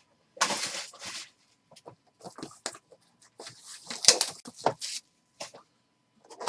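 Trading card packs and cards being handled: crinkling and rustling of pack wrappers with short clicks and taps of cards. The loudest rustle comes about four seconds in.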